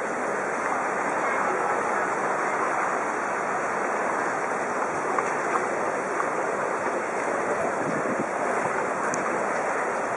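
Steady rushing of fast-flowing floodwater running along a flooded street.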